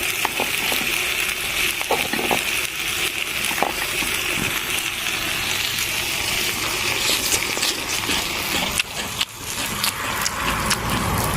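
Food sizzling steadily in a small cooking pot, with a few light clicks scattered through.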